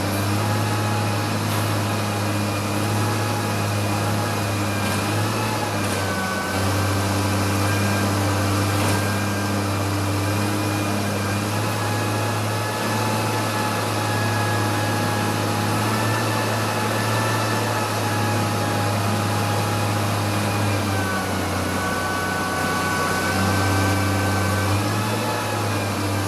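Garbage truck running steadily, a low engine hum under a higher mechanical whine that shifts in pitch a few times.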